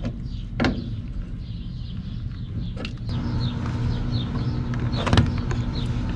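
A steady low machine hum with three sharp clicks or knocks spread through it, and a string of faint, short high chirps.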